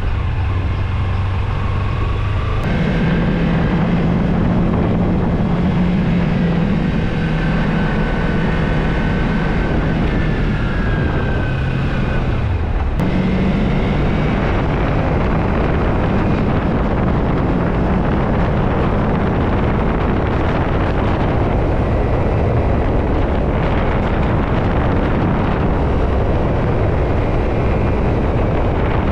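Motorcycle engine running under way, its note stepping up a couple of seconds in and dipping briefly about halfway before picking up again, with wind rushing over the microphone, heaviest in the later part.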